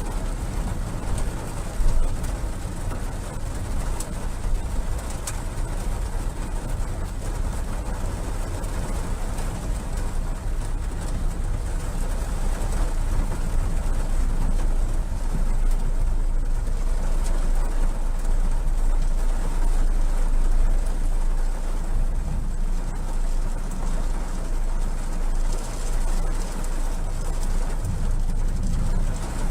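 Storm wind rumbling heavily on the microphone over a steady hiss of wind-driven rain.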